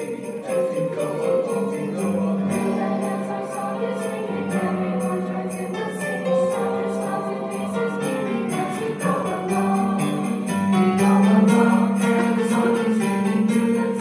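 High school mixed choir singing, with sleigh bells jingling in a steady, even rhythm over the voices.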